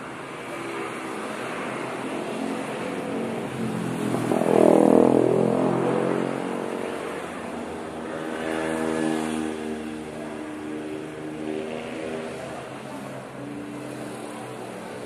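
Motor vehicles driving past. One passes close about four to five seconds in, its engine note dropping as it goes by, and another passes about nine seconds in.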